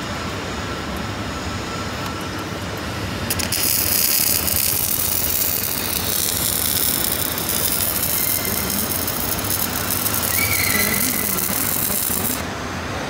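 Wire-feed (MIG-type) arc welding on steel plate: the arc strikes about three seconds in and runs as a steady crackling hiss, then cuts off about a second before the end. Before it starts there is only a steady workshop hum.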